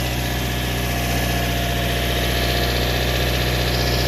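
Subaru Sambar mini-truck's small engine idling steadily with its engine lid open, running smoothly.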